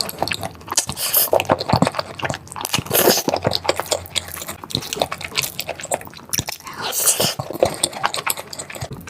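Close-miked eating sounds: wet chewing and biting, with many irregular clicks and smacks.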